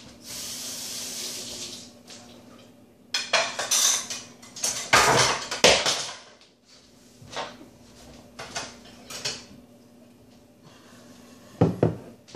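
Plates, pans and cutlery clattering as cooked food is dished up, with a dense run of knocks and scrapes a few seconds in and scattered clinks afterwards. A brief steady hiss in the first couple of seconds, over a faint steady hum.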